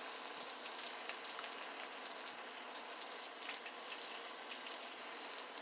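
Fry bread dough frying in hot grease: a steady sizzle with fine crackling.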